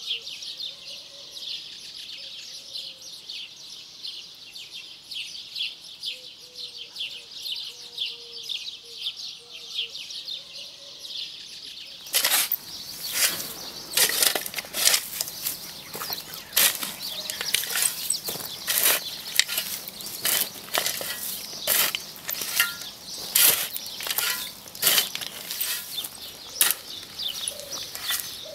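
Dense high chirping of birds at first. About twelve seconds in, a hoe starts chopping into dry, stony earth, with a run of irregular sharp strikes and scrapes that goes on over and over.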